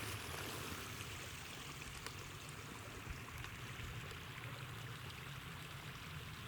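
A small stream running over a little waterfall: steady splashing and babbling water.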